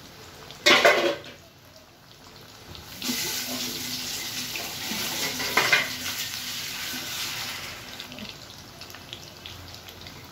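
A sharp metallic clank about a second in, as the pan lid is set down, then a kitchen tap runs into the sink for about five seconds and eases off. Under it, chicken pieces sizzle steadily as they deep-fry in oil in a kadai.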